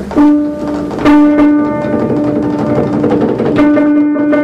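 Live instrumental improvisation depicting fireworks begins: a loud held note with rich overtones comes in suddenly, is sounded again about a second in, and once more near the end.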